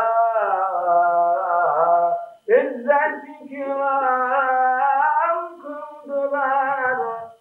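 A solo man's voice chanting a slow, ornamented religious melody in long, wavering held notes. There is a short breath pause about two and a half seconds in, and the voice stops at the very end.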